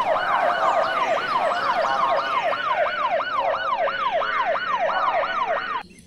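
Fire engine siren in a fast yelp, its pitch rising and falling about three times a second, cutting off suddenly just before the end.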